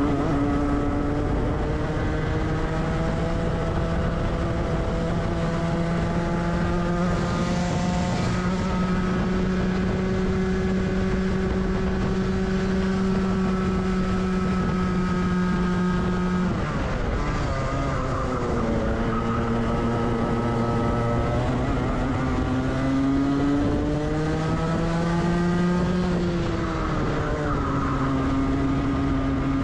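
Rotax 125cc two-stroke kart engine heard onboard under full throttle. Its pitch climbs slowly along a long straight and falls sharply just past halfway as the driver lifts for a corner. It then climbs again and dips briefly near the end.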